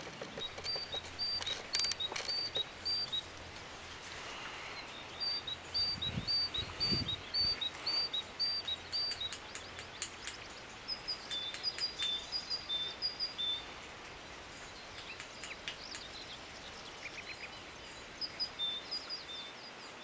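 Great tit singing its two-note 'tea-cher' song: a high note and a lower note repeated quickly, in runs of about six to nine phrases, in four bouts with pauses between.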